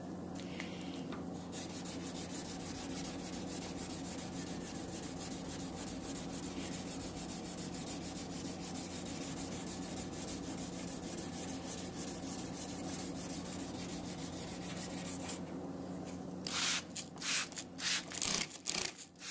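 600-grit wet sanding paper scrubbing back and forth on a car's painted clear coat, a steady fast rubbing that starts about a second and a half in, with a handful of louder, separate strokes near the end.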